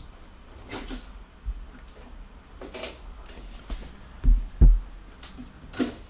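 Handling and turning the pages of a book: a few short paper rustles, and two dull thumps close together a little past halfway, the loudest sounds.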